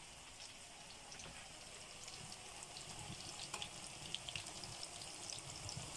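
Pârjoale (minced-meat patties) frying in hot oil in a frying pan: a faint, steady sizzle with scattered small pops that grows a little louder as it goes on.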